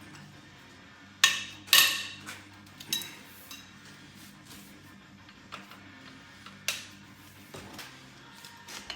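Head bolts being loosened on a 5.7 Hemi cylinder head with a wrench and socket: a few separate sharp metallic clanks and cracks, the two loudest a little over a second in.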